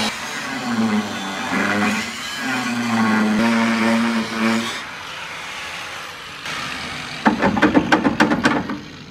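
Corded angle grinder with a cutting disc slicing through the car body's A-pillar steel, its whine dipping and wavering as the disc bites, then stopping about five seconds in. Near the end comes a quick run of sharp knocks and clatter as the cut steel is handled.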